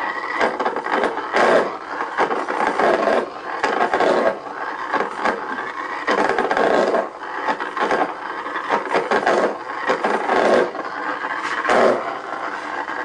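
High-voltage spark gap fed by a microwave oven transformer's secondary winding, arcing with a loud, continuous rasping crackle broken by sharper snaps every half second to a second.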